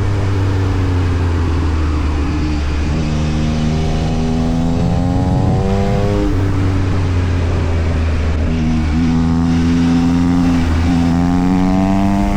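Yamaha MT-09 SP's inline three-cylinder engine running through an Austin Racing aftermarket exhaust. Its note holds for a few seconds at a time, dips sharply several times and climbs again near the end.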